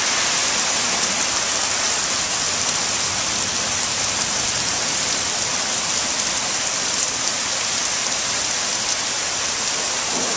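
Heavy monsoon rain pouring down in a steady hiss, mixed with floodwater rushing down a street.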